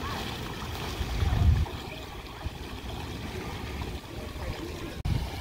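Floodwater sloshing and trickling around wading legs, with a louder low rumble about a second in.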